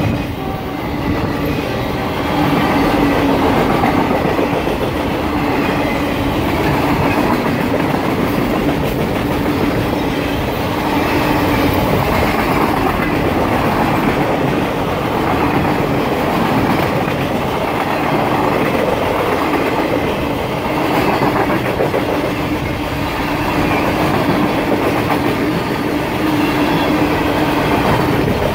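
Freight train of loaded flatcars passing close by: steel wheels rolling on the rails with a steady rumble.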